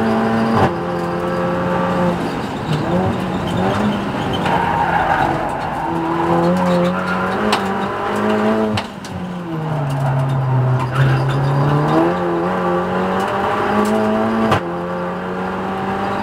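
Audi TT race car's engine heard from inside the cabin at speed. The note falls away through the middle as the car slows for a corner, then climbs again as it accelerates, with abrupt steps in pitch about half a second in and near the end.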